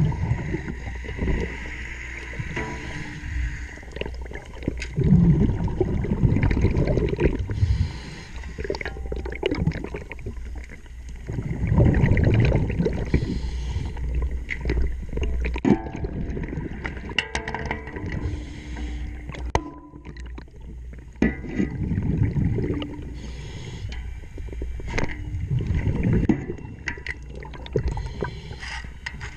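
Underwater sound of a scuba diver breathing through a regulator: gushes of exhaust bubbles four times, over a steady low rumble. Scattered sharp clicks and knocks run through it.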